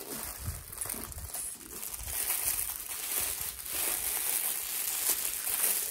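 Packaging wrapping being unwrapped and crumpled by hand: dense, continuous crinkling and crackling that grows louder about two seconds in.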